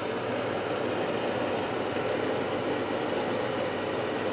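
Hot oil in a deep fryer sizzling and bubbling steadily around a beer-battered sandwich just lowered into it, a dense crackling hiss.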